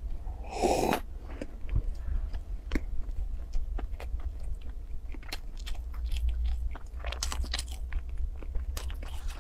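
A sip drunk from a glass bowl about half a second in, then crisp biting and crunching of small bits of food close to the microphone, a run of sharp clicks with a busier patch near the end.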